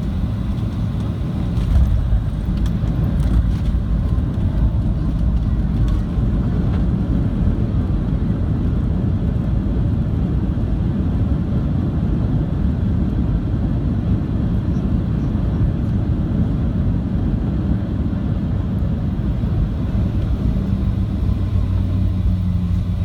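Cabin rumble of a Boeing 737-700 on landing. The low roar swells about two seconds in, then holds steady, and a low hum comes in near the end.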